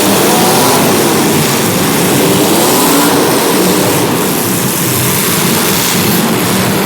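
Demolition derby car engines revving hard together, a loud, dense din. The engine pitch wavers up and down in the first three seconds.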